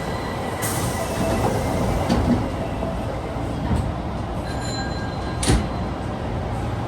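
Osaka Metro 22 series subway car 22962 running, heard from inside the car: a steady rumble of wheels and running gear with faint high-pitched tones. Sharp clunks come about half a second in and again about five and a half seconds in. The uploader labels this car an 異音車, an abnormal-noise car.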